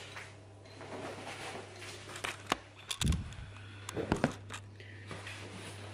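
Household handling noises: scattered clicks and knocks, with a low thump about three seconds in and a quick cluster of knocks about a second later, over a steady low hum.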